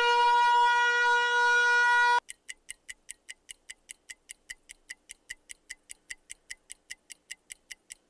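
Air raid siren holding a loud, steady tone that cuts off suddenly about two seconds in. It is followed by a quieter countdown timer ticking evenly at about four ticks a second.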